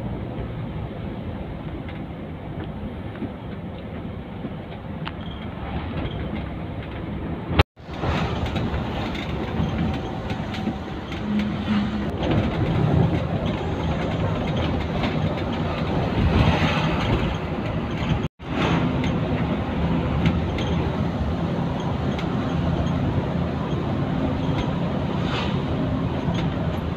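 Bus engine and road noise heard from inside the moving bus, a steady hum, broken by two abrupt drop-outs where the recording cuts.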